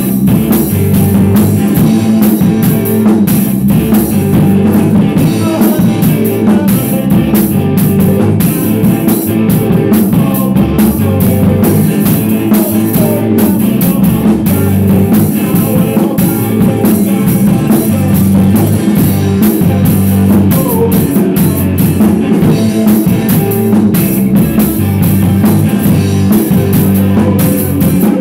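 Rock band playing loud through a song: drum kit with electric guitar, continuous throughout.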